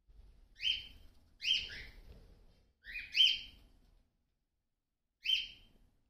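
Cockatiel chirping: short, sharp chirps in four quick bursts, two of them doubled.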